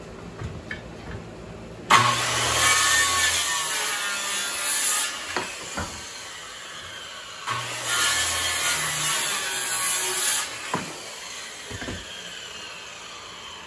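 Handheld circular saw started twice, each time cutting through a wooden rafter board for about three seconds before it is released and spins down; these are the two angled cuts at the rafter's end. A few sharp knocks follow as the board is handled.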